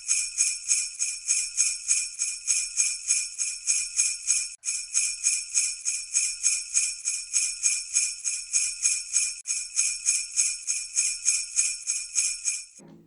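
Sleigh bells jingling in a steady rhythm, about three or four shakes a second, cutting off near the end.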